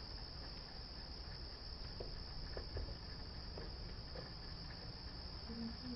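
Steady high-pitched whine over a faint low rumble, with a few faint soft knocks about two to four seconds in.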